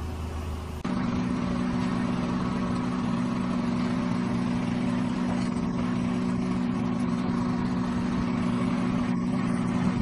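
Car engine idling steadily, cutting in about a second in after a brief different sound.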